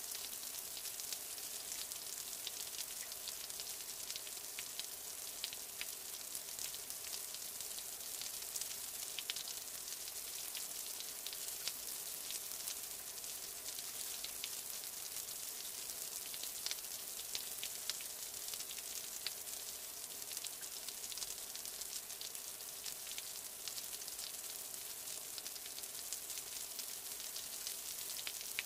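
Heavy wet snow falling: a steady fine hiss with many tiny irregular ticks of flakes striking surfaces.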